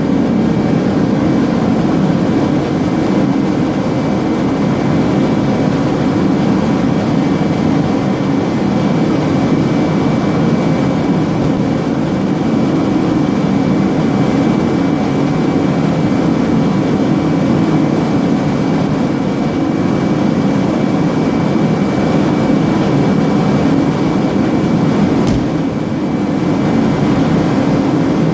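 Steady road and wind noise inside the cabin of a 1993 Honda Del Sol on the move, with a single knock a few seconds before the end.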